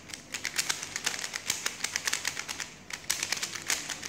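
QiYi Thunderclap V2 3x3 speed cube being turned quickly by hand: a rapid run of plastic clicks as the layers snap round, with a brief pause a little before three seconds in.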